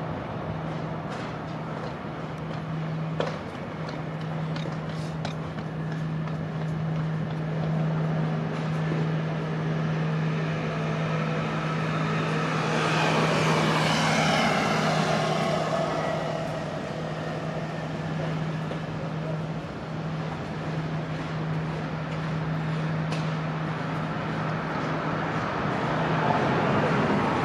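Steady road traffic with a constant low engine hum, and a louder vehicle passing about halfway through. A few sharp knocks sound in the first few seconds.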